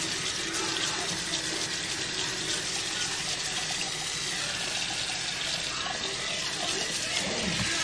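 Kitchen tap running steadily into a sink, rinsing baking soda and cleaning paste off a ceramic dish.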